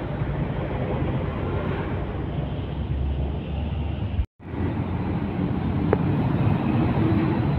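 Road traffic: heavy trucks passing among motorbikes, a steady rumble of diesel engines and tyres. The sound cuts out for a moment about four seconds in.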